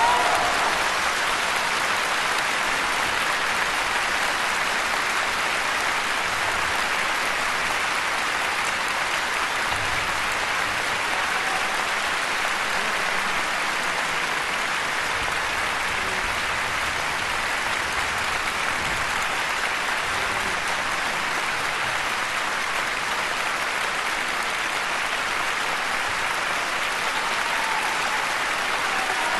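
A large concert-hall audience applauding, a dense, even clapping that holds steady throughout.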